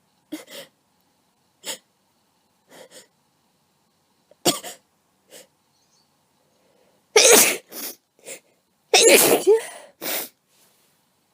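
A person sneezing again and again with a cold. A few short, quieter sneezes come in the first seconds, then a run of loud sneezes about seven to ten seconds in.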